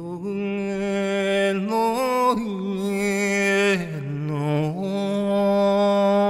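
A man's voice chanting long, held wordless notes, with no instruments. It rises briefly about two seconds in, dips lower about four seconds in, then returns to the same held note.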